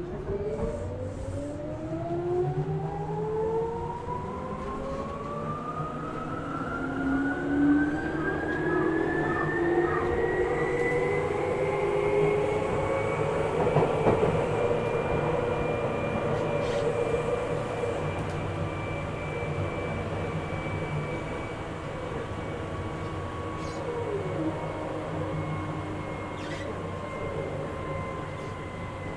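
Tokyu 8500 series train's Hitachi traction motors whining as the train pulls away and accelerates, the pitch rising steadily for about twelve seconds, then holding and easing slightly downward, over a steady rumble of the running train.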